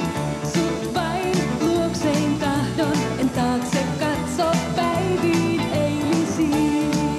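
A woman singing a Finnish-language pop song over a band backing with a steady beat.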